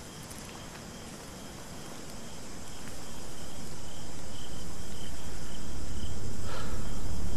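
Crickets and other insects chirping steadily. A low rumble swells steadily louder from about two seconds in, and one brief sharp sound comes near the end.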